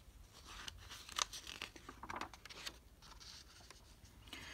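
Faint paper rustling and light crinkles as a page of a large picture book is turned by hand, a few short rustles with the sharpest one just after a second in.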